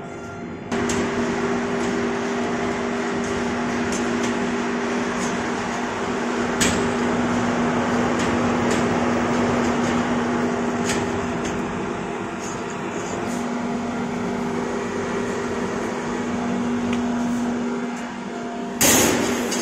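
CNC plasma cutting machine with its Huayuan LGK-200 IGBT air plasma power source running: a steady hum and hiss with two low tones, starting abruptly about a second in. Scattered clicks, and a short loud burst near the end.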